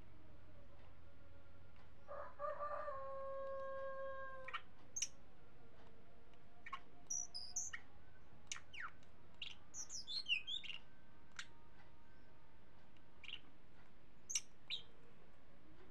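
A rooster crows once, about two seconds in, for roughly two and a half seconds. Then a caged hill blue flycatcher gives a string of short, sharp, high chirps, with a quick twittering run near the middle.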